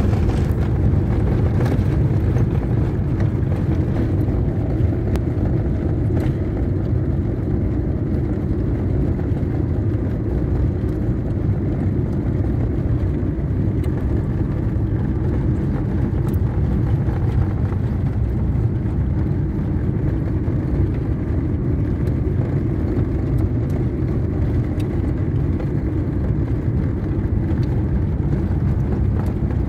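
Steady low rumble of a car driving on the road, the engine and tyre noise heard from inside the cabin.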